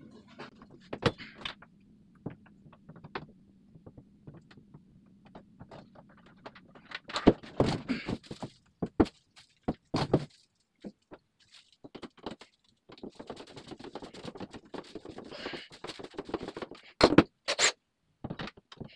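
A medicine cabinet being handled and held up against a wall: scattered knocks, clicks and scrapes, with the loudest knocks about seven, ten and seventeen seconds in.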